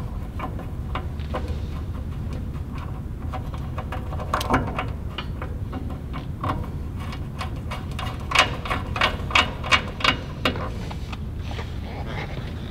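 Small clicks and taps of a cable's connector being fitted and tightened onto the back of a dust level sensor in a steel drum lid, with a run of about six sharper clicks in the second half, over a steady low hum.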